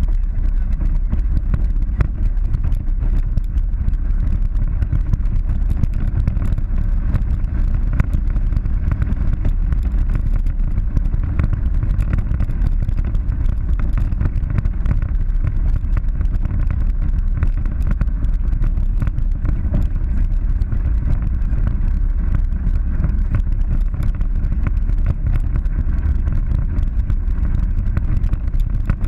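Polaris 900 side-by-side driving along a rough dirt trail: the engine runs steadily under a heavy low rumble at the hood-mounted camera, with scattered knocks and rattles throughout.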